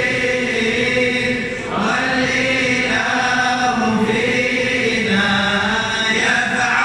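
A large group of men reciting an Arabic devotional poem aloud together as a slow unison chant, with long held notes.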